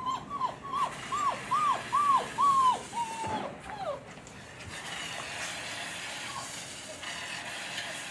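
Four-week-old German Shepherd puppy whining: about nine short falling cries, a few a second, growing louder, then stopping about four seconds in. A steady hiss follows.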